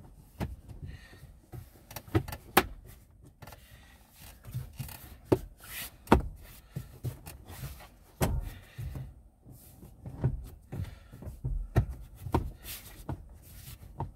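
Plastic lower steering-column cowl of a Smart Forfour 453 being pushed and worked back into place by hand: irregular sharp plastic clicks and knocks with rubbing between them as its two rear hooks are engaged.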